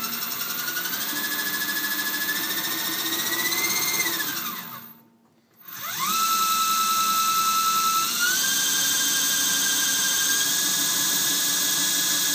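48-volt electric inboard motor turning the sailboat's propeller shaft in forward with a steady whine whose pitch climbs in steps as the throttle is advanced. The whine slides down and stops about five seconds in. After a brief silence the motor starts up again in reverse, rising quickly to a steady whine and stepping up in pitch once more.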